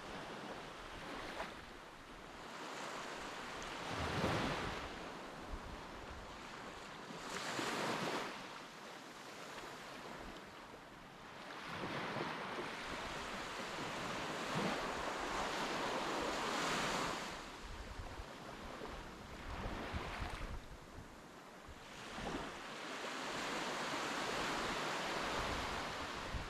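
Sea waves washing in and drawing back, swelling every few seconds, with wind buffeting the microphone.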